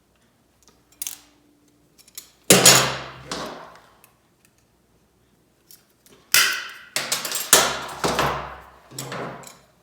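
Metal clanks and clicks of hand tools working the metal clamp strap of a pipe guard: about eight sharp knocks, several ringing briefly, the loudest about two and a half seconds in and again a little after six seconds.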